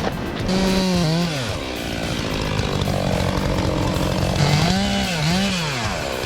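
Chainsaw engine running, its pitch rising and falling in two quick revs about a second in and two more near the end, holding a steady note in between.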